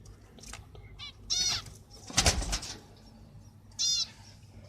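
Zebra finch calling twice, short arched calls about a second and a half in and again near the end; between them, about two seconds in, a brief flurry of wing flapping, the loudest sound.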